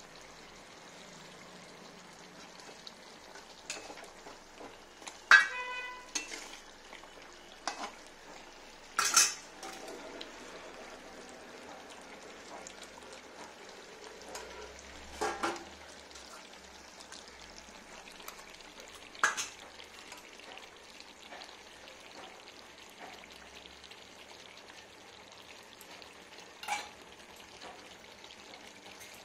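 Scattered metallic clinks of a small steel bowl against the rim of an aluminium cooking pot while rice is layered in by hand, about eight in all, the loudest about five and nine seconds in, one ringing briefly. Under them a steady sizzling hiss from cooking on the stove.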